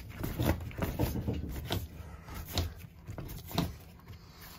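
Brass Caleffi automatic air vent being screwed by a gloved hand into the 1/8-inch tapping of a cast-iron Taco air scoop. Scattered short scrapes and small clicks come at irregular intervals as the threads turn.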